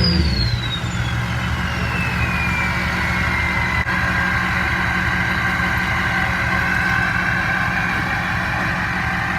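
Turbocharged V8 diesel of a Ford 6.0 Powerstroke, fitted with a Powermax stage 2 turbo with a 10-blade turbine, dropping back to idle after a rev. The turbo whistle falls in pitch over the first few seconds as it spools down, then holds a steady whine over the idling engine.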